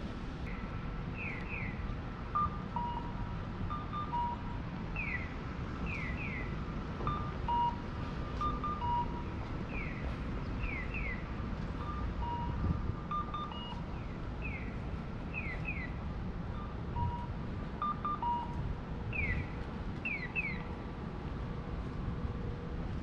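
Japanese audible pedestrian crossing signal playing electronic bird calls: groups of short falling 'piyo' chirps, one then two, repeating every few seconds, alternating with a two-note 'cuckoo' tone that steps down in pitch, over steady street traffic noise.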